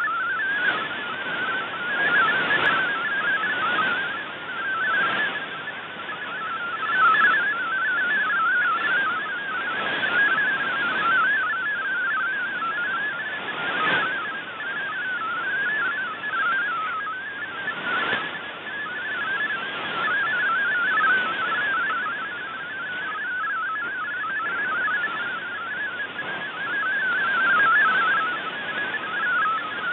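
MFSK32 digital text signal received on a shortwave radio: a fast, warbling run of hopping tones over steady receiver hiss with faint crackles of static, its strength wavering up and down as the signal fades.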